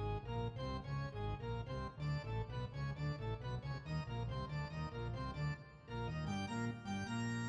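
Outro music: an organ-like keyboard tune in quick, steady notes, settling onto a held chord near the end.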